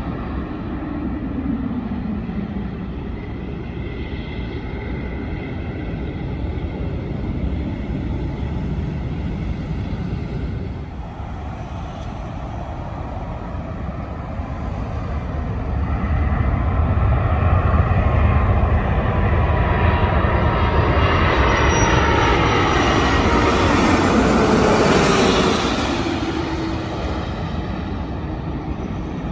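Jet airliner on landing approach passing close overhead. The engine rumble builds, peaks, then fades, and the engine whine falls in pitch as the aircraft goes by.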